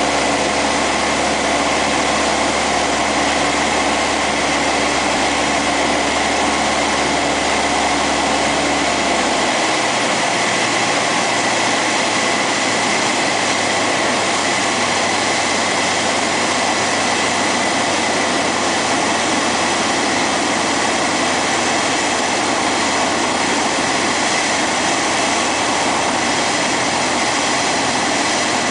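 Cessna 172's piston engine and propeller running steadily in flight, heard loud from inside the cockpit. The engine note changes about nine or ten seconds in.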